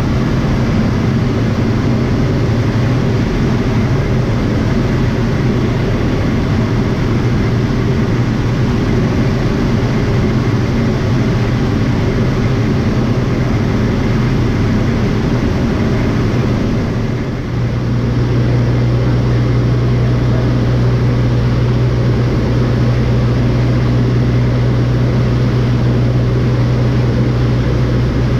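Airplane engine and propeller running steadily. About two-thirds of the way through, the sound dips briefly and then settles into a steadier, stronger drone, as if the power setting changed.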